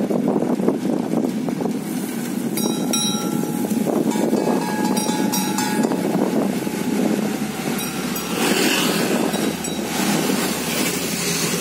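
Steady road rumble and wind noise from riding along an asphalt street in a pedicab. There are a few brief high tones about two and a half and five seconds in, and a motor vehicle passes close by near the end.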